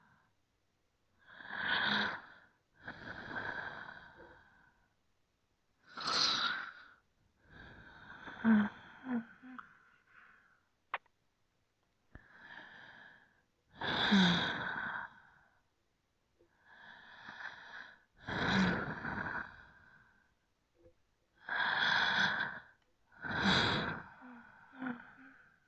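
Human breathing: slow, deep breaths in and out, each about a second long, with short silences between them. A few breaths carry a brief low catch in the throat.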